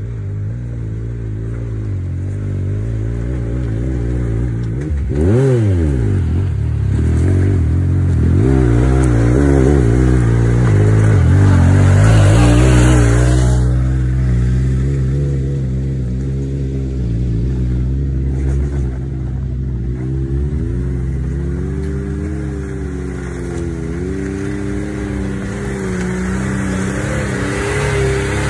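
Side-by-side UTV engine working up a steep rock slope, revving up and down as the throttle is worked. There is a quick sharp rev about five seconds in, and it is loudest around twelve seconds, then wavers on a lower note.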